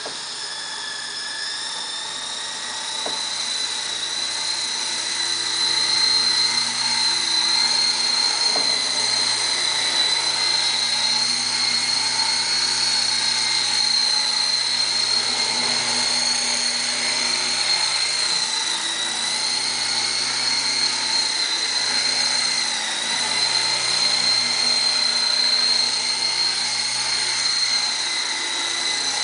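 Lama V4 coaxial RC helicopter's electric motors and rotors running with a steady high-pitched whine, growing louder over the first few seconds and then holding.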